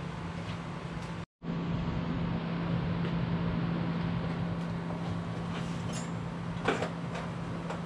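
Steady mechanical hum, breaking off for a moment about a second in, with a short knock near the end.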